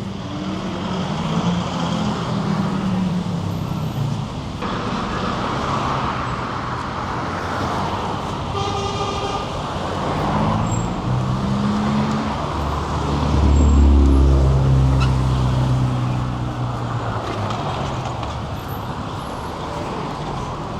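City street traffic: car engines passing, rising and falling in pitch, with a short horn toot about nine seconds in. Around thirteen to fifteen seconds in, a heavy vehicle passes close with a loud low rumble.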